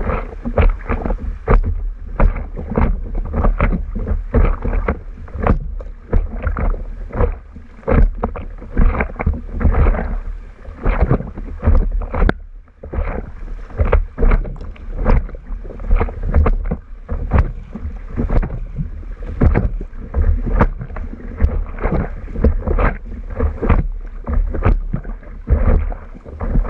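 River water slapping and splashing against the nose of an inflatable stand-up paddleboard as it rides through choppy current, in quick irregular slaps over a constant low rumble.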